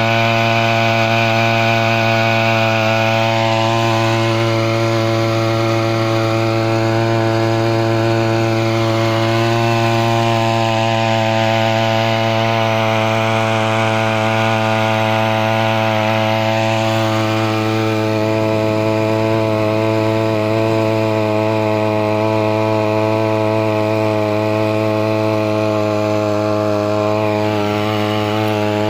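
Petrol string-trimmer engine driving an inflatable boat as a makeshift outboard motor, running steadily at a constant high speed with a buzzing drone.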